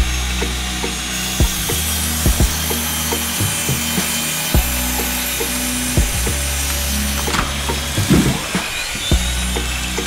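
Small electric motor spinning a toy circular saw disc as it cuts into a thin tree trunk: a steady hum with irregular sharp clicks and knocks.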